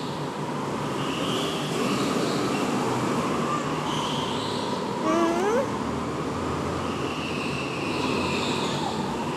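Steady background noise of an indoor go-kart track as karts lap, with a young child's short, rising squeal about five seconds in.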